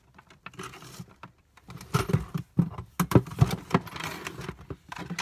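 Metal hand tools clinking and rattling as someone rummages through them looking for a pair of needle-nose pliers. There are a few light ticks at first, then a busier run of irregular knocks and clatters from about two seconds in.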